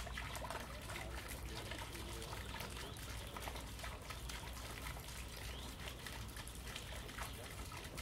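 Small water fountain trickling and splashing steadily into a pond.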